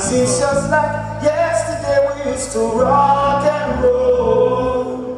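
Male voices singing together into microphones over sustained backing chords, live on a stage sound system.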